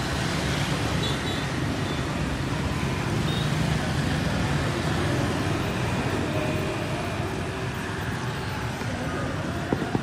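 Street traffic noise: motorbike engines running as scooters pass close by, a steady low rumble throughout.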